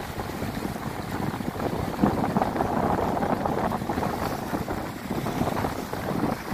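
Sea waves breaking and washing around shoreline rocks, with wind rumbling on the microphone; the surf swells louder about two seconds in.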